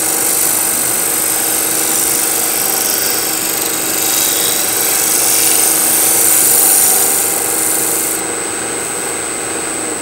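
A wood lathe runs with a steady motor hum while a skew chisel, held flat as a scraper with a burr on its edge, lightly scrapes the end grain of a spinning cross-grain bowl to clean up torn grain. The scraping hiss stops about eight seconds in as the tool comes off the wood, leaving the lathe running.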